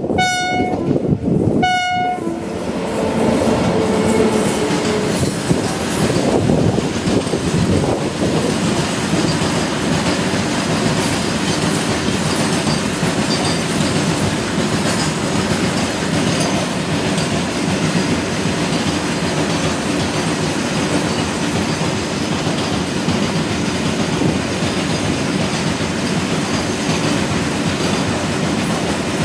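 Indian Railways WAG-9Hi electric freight locomotive sounding its horn in two blasts, a longer one then a short one. Then the locomotive and its freight wagons pass, a loud steady noise of wheels on rail and clickety-clack over the rail joints.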